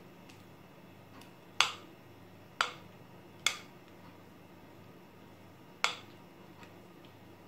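Three sharp taps about a second apart, then a fourth about two seconds later, from the glass mixing bowl being knocked to shake the last of the spinach cake batter onto the baking tray.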